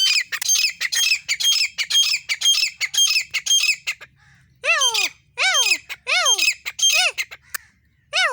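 Grey francolin calling: a fast run of shrill, rapidly repeated notes for about four seconds, then a series of loud notes that each slide down in pitch, about two a second.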